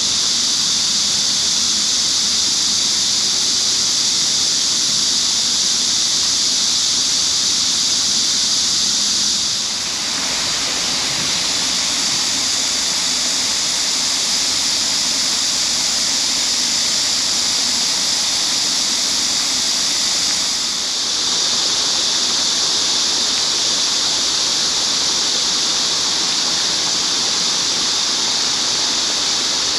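Dense chorus of cicadas: a loud, steady high-pitched buzz, dipping briefly about ten seconds in and again about twenty seconds in.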